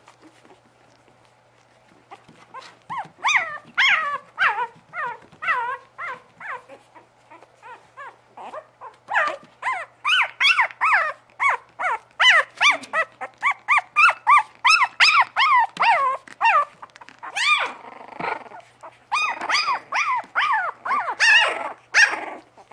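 Young Bugg (Boston terrier–pug cross) puppies crying: a rapid run of short, high-pitched whimpers and yelps, several a second, starting a couple of seconds in.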